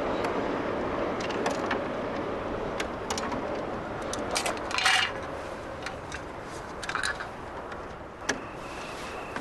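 Steady rumbling noise fading slowly, with scattered clicks and a sharp clatter about five seconds in. A cricket starts chirping steadily near the end.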